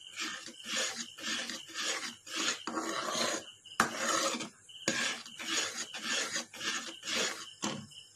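Spatula scraping around a nonstick kadai, stirring a thick milk-powder and sugar-syrup peda mixture, in repeated rasping strokes about two or three a second. There is one sharp tap a little before halfway.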